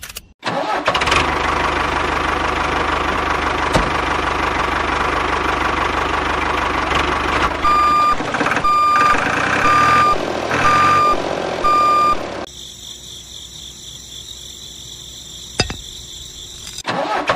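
Diesel tractor engine running with a knocking idle, joined by five reversing beeps about a second apart as the tractor backs up. Near the end the engine sound stops and a quieter, thinner steady hum is left.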